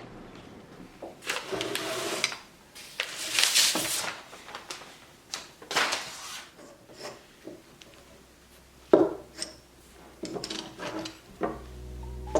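Wood being handled and worked by hand: irregular rubbing and scraping strokes with a few sharp knocks, the sharpest about nine seconds in.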